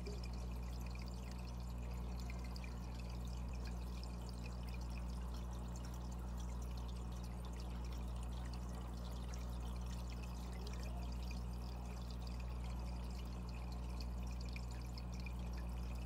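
Aquarium filter running: a steady electrical hum with water trickling and splashing over it.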